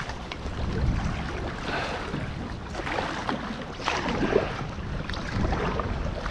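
Kayak paddle strokes splashing in the water, roughly one a second, over low rumbling wind buffeting the microphone.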